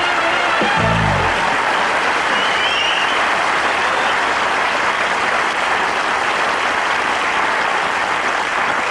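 Studio audience applauding steadily. The last notes of the opening theme music end about a second and a half in.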